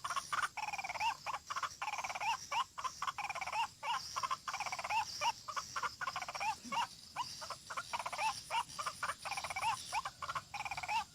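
White-breasted waterhen (ruak-ruak) calling: a continuous run of harsh, repeated notes, a few a second, over a steady high hiss.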